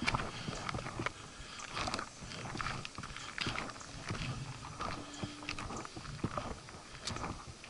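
Hikers' footsteps on a rocky trail: an uneven run of crunches and scuffs, about two or three a second.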